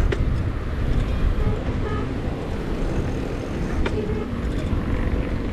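Wind rushing over an action camera's microphone and road rumble during a ride along a road, a steady low buffeting that rises and falls, with faint hum from nearby vehicles.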